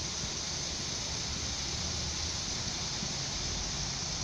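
Alstom Coradia Lint diesel multiple unit approaching at low speed: a low engine hum under a steady hiss of outdoor noise, the hum growing a little firmer near the end.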